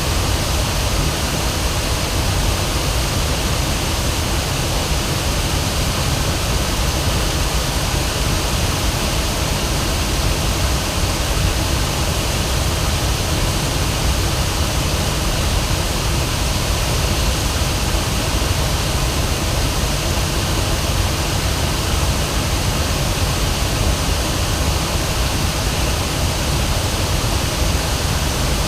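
River waterfall rushing: a steady, loud wash of falling water.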